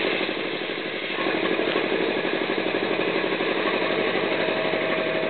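Homemade belt-driven air compressor running steadily with a fast, even pulse, pumping up tank pressure from about 98 psi toward its cut-out near 108 psi.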